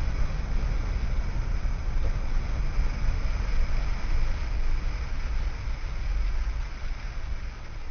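A car driving, with a steady low rumble of engine and road noise that eases slightly near the end.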